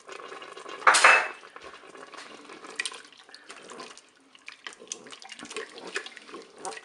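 A wooden spoon stirring a thin sauce in the non-stick pot of a Cookeo multicooker, with irregular scraping and knocking against the pot and liquid sloshing, as cornflour slurry is worked in to thicken it. A short loud clatter about a second in stands out above the stirring.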